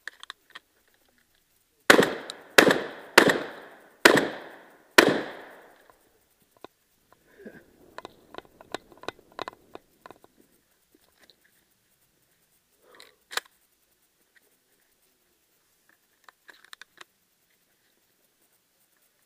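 Shotgun firing five shots in quick succession, each a sharp report with an echoing tail, a little under a second apart. Lighter irregular clicks and clatter follow, with one more sharp crack about halfway through and a few faint clicks near the end.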